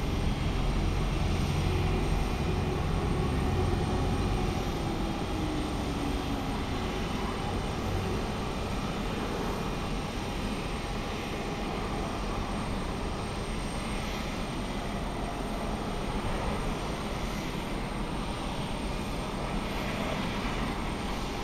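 Jet aircraft engine noise across an airport apron: a steady rumble and hiss, heaviest in the first five seconds, with a faint falling tone a few seconds in.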